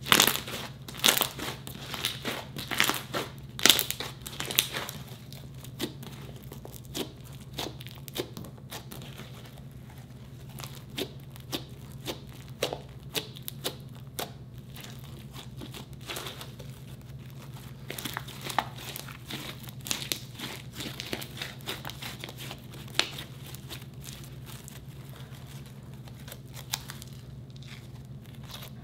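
Hands squishing, poking and stretching a glittery slime made with instant snow: a run of sticky crackles, pops and squelches. They are thickest in the first few seconds and come again about two-thirds of the way through.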